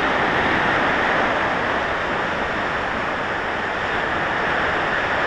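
Steady, loud rush of water along a waterslide during a ride, with no breaks or separate splashes.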